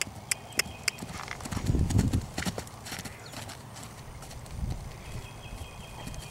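Horses' hooves on grass pasture as a foal gallops and plays beside its mare: a few sharp clicks in the first second, then a loud cluster of dull thuds about two seconds in.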